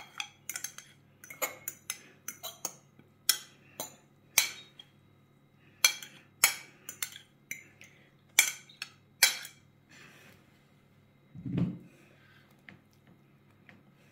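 Metal fork scraping and clinking against a stainless steel bowl as the filling is scraped out, a quick run of sharp clinks for most of the time. A single dull thump follows near the end.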